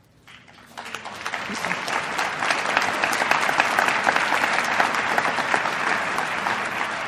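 Large audience applauding, starting thinly and swelling to full applause within about two seconds.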